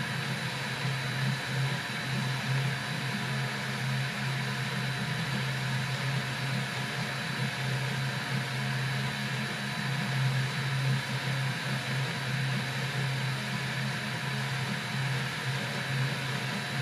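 HyperCube CoreXY 3D printer printing: its stepper motors hum in a steady, fluttering low drone as the head makes small moves, over the whir of the hotend cooling fan and a thin steady high whine.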